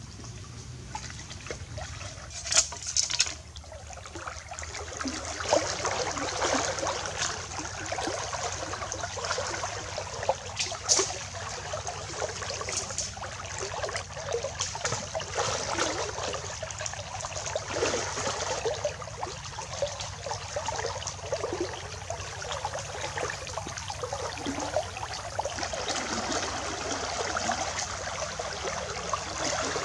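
Legs wading through a shallow river: water splashing and swishing continuously as it is pushed aside with each stride. A few sharp splashes or knocks come about two to three seconds in, as the wading begins.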